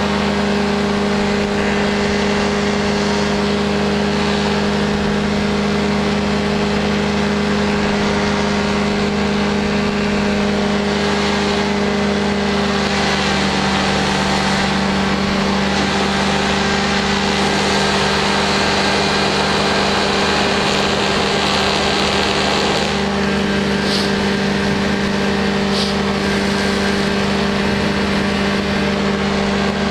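Powered parachute's engine and propeller running steadily at a constant drone while the aircraft climbs, with a hiss of rushing air that grows stronger midway. Two short high ticks come near the end.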